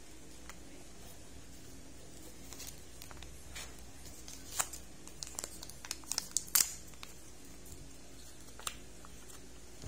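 Kinder Joy packaging handled by fingers: thin plastic and foil crinkling and peeling. A run of short, sharp crinkles from about two and a half to seven seconds in, and one more near the end.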